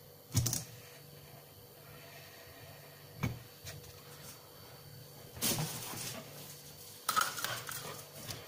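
Faint handling sounds of small tools and plastic parts on a board: a light knock about half a second in and another a little after three seconds, then two short spells of scraping or rustling in the second half.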